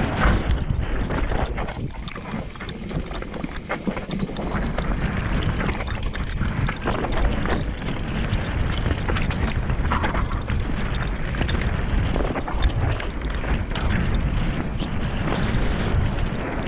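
Wind buffeting the microphone over the rumble of a mountain bike's tyres on a rough dirt singletrack, with frequent rattles and knocks from the bike as it bounces over rocks and bumps.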